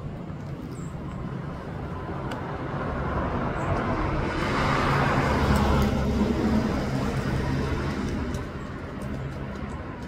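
A road vehicle passing by, its engine and tyre noise swelling to a peak about five to six seconds in, then fading away.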